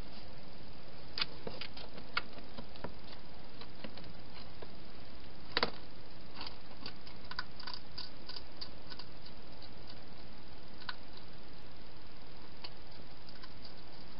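A hedgehog feeding at bowls inside a clear plastic feeding box: scattered small clicks and crunches, the loudest a knock about halfway through and a quick run of them just after, over a steady hiss.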